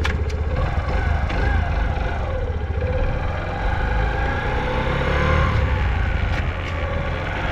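Suzuki GS50's 49 cc four-stroke single-cylinder engine running steadily with an even low beat, which the seller calls quiet and free of abnormal noise. A couple of sharp clicks sound over it.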